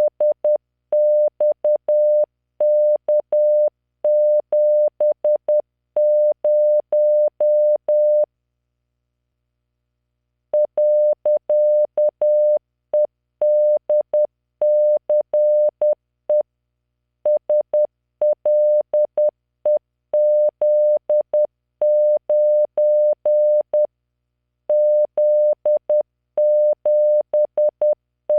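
Morse code keyed as a pure computer-generated 600 Hz tone at 10 words per minute, sending random five-character groups of letters, figures and punctuation, with a faint click at each start and stop of the tone. The sending stops for about two seconds a third of the way in, then resumes.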